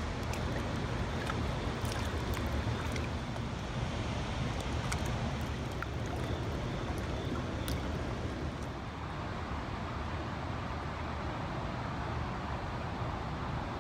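Steady rush of river water with wind rumbling on the microphone, and a few faint clicks in the first half.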